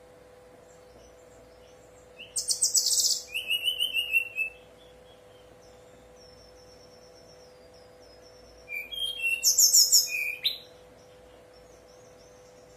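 Brown-chested jungle flycatcher (SRDC) singing: two bursts of rapid, high trilled song about two seconds each, with faint thin whistled notes between them. A faint steady hum lies underneath.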